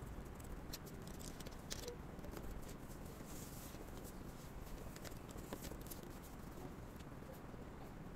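Faint clicks and taps of small desk items being handled and set down, with a short paper-like rustle about three seconds in, over a steady low room hum.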